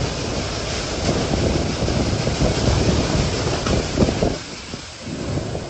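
Storm wind buffeting the microphone: a dense rushing noise with a heavy low rumble that comes in gusts, easing off over the last second or so.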